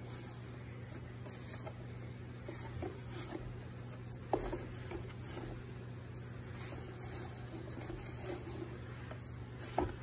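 A hand rummaging inside a bagless vacuum cleaner's plastic dust bin, scraping and pulling out packed dirt and debris. Two sharp plastic knocks come about four seconds in and near the end. A steady low hum runs underneath.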